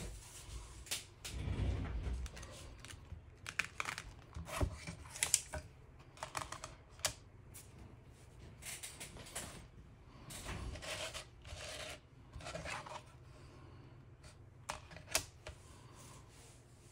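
Scattered clicks, taps and short rustles of hands handling a cured UV-resin piece and its plastic tracing sheet, several sharp clicks bunched around the middle.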